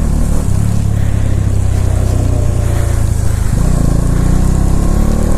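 Bajaj Dominar 400's single-cylinder engine running as the motorcycle is ridden. The engine note changes about three and a half seconds in and then climbs in pitch.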